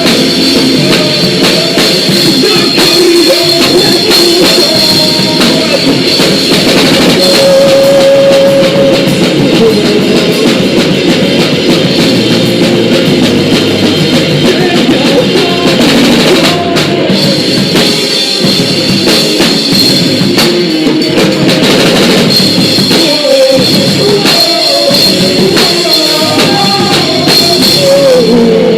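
Live punk rock band playing at full volume on drum kit and amplified instruments, loud and dense with no let-up.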